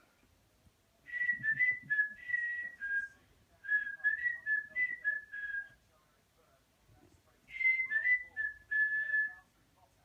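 Cockatiel whistling a tune in two phrases of short, clear notes stepping up and down in pitch. The first phrase runs about five seconds; the second, shorter one follows after a pause of about two seconds.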